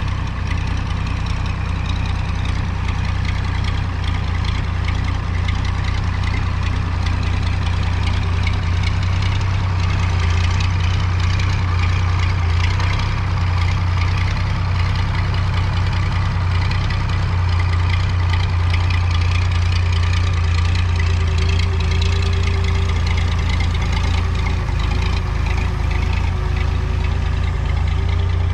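Engine of a Pettibone rough-terrain mobile crane running steadily, with a deep low hum, while the crane holds a load on its hook. A faint steady whine joins about three-quarters of the way in.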